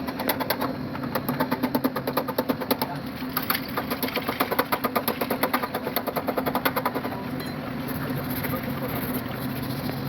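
Rapid series of sharp taps, about five a second, running until about seven seconds in, over a steady low hum.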